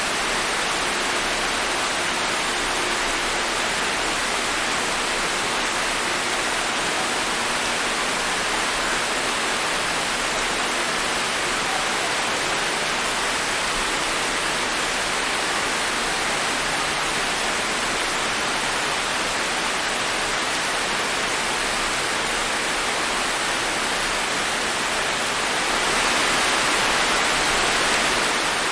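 Steady rain falling, an even hiss with no single drops standing out. It gets slightly louder for a couple of seconds near the end.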